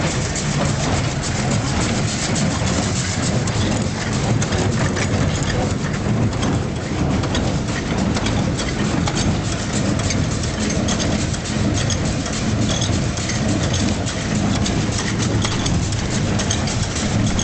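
Claas Markant 60 small square baler running, a steady mechanical clatter dense with rapid clicks and knocks over a low drone.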